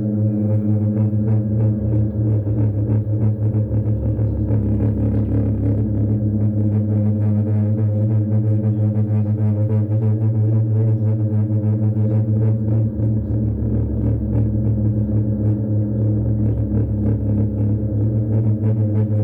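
Lawn mower engine running at a steady speed, a constant loud drone.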